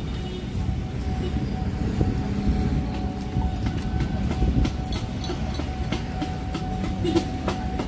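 Electric commuter train running on the rails: a steady low rumble with a faint constant tone, and a run of sharp clicks and knocks in the later part.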